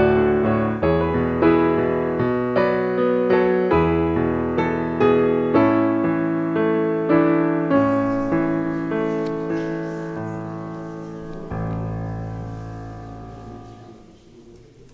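Solo piano music: a slow run of struck notes and chords, each dying away, ending on a final chord that fades out near the end.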